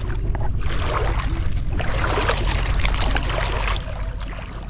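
Shallow seawater sloshing and splashing, with irregular small splashes over a steady low rumble.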